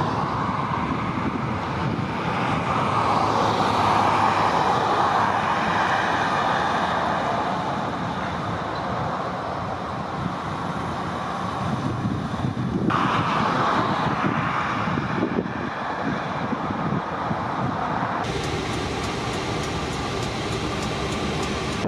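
Steady road traffic noise: the rush of cars and other vehicles on the streets, with the sound changing abruptly twice along the way.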